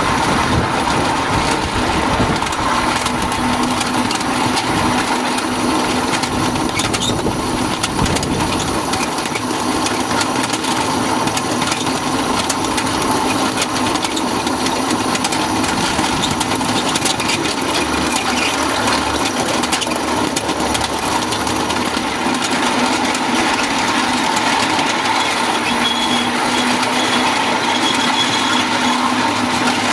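Small engine of a ridable miniature-railway locomotive running steadily as the train rolls along the track, with scattered clicks and rattles from the wheels and rails.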